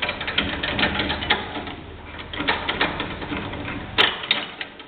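Irregular metallic clicking and clattering of hand tools on steel suspension parts, with one sharper clack about four seconds in.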